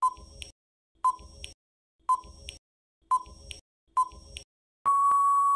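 Quiz countdown-timer sound effect: five short beeps, one a second, then a longer steady beep starting near the end as the count runs out.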